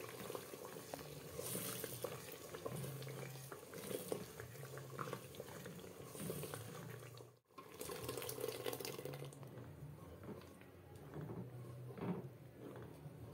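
Blended pepper, onion and ginger-garlic purée sizzling and bubbling in hot oil and tomato in a metal pot, stirred with a wooden spatula. The sound cuts out briefly about halfway through.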